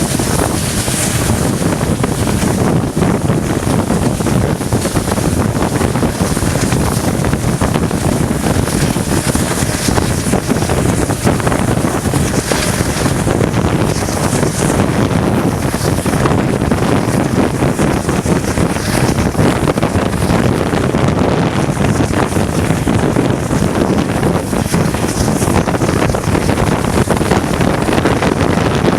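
ALCO diesel locomotive's engine running steadily under load while hauling a passenger train, with wind buffeting the microphone.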